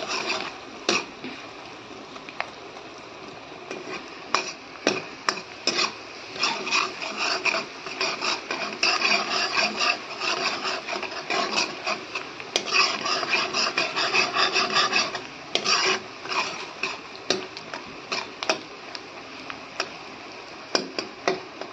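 Metal ladle scraping and stirring sliced onions frying in oil in a metal kadhai (wok), with irregular scrapes and clinks against the pan. The stirring is busiest between about 6 and 16 seconds in, then thins out to occasional knocks.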